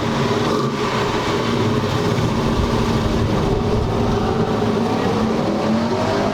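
Big-block V8 muscle car engine running steadily at idle with a lumpy note, its pitch rising a little near the end.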